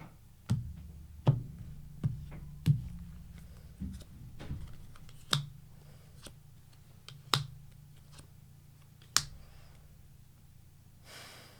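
Tarot cards being handled and set down on a table: a series of sharp, irregularly spaced taps and clicks, about eight in all, several close together near the start.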